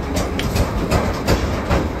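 Steady clattering rumble of workshop machinery with frequent irregular metallic clacks, joined by forged steel hammer heads clinking as they are stacked.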